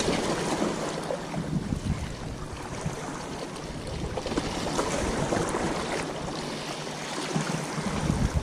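Wind buffeting the microphone in low gusts, strongest at the start and again near the end, over a steady wash of small waves lapping against breakwater rocks.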